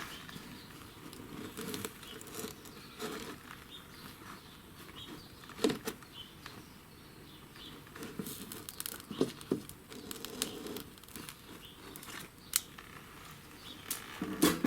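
Irregular rustling and crinkling, as of material being handled, with scattered light clicks and knocks, the sharpest about six seconds in.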